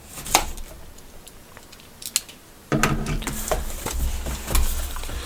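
Cardboard product box being handled and opened on a wooden table: a sharp tap about a third of a second in and another about two seconds in, then from nearly three seconds in a steady scraping and rustling of cardboard as the box is slid and opened.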